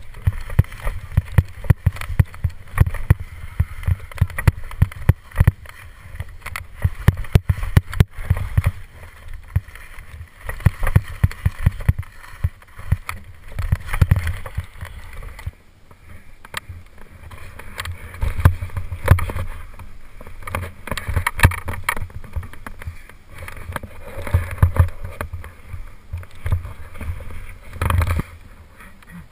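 Skis scraping and chattering over hard, chopped-up snow in a fast descent, with many sharp clattering strokes over a low rumble of wind on a head-mounted camera's microphone. The noise eases briefly about halfway through, then picks up again.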